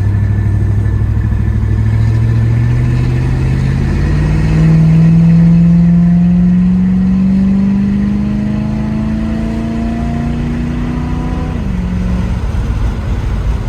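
Car engine accelerating under load, its pitch climbing steadily for about eleven seconds, then dropping suddenly near the end as it shifts up a gear.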